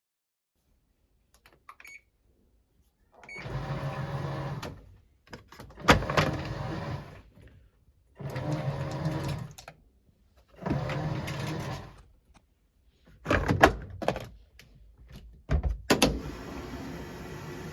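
Washing machine starting a cycle: a few small clicks, then its motor turning the drum in about six short bursts a couple of seconds apart, and near the end a steady rushing sound begins.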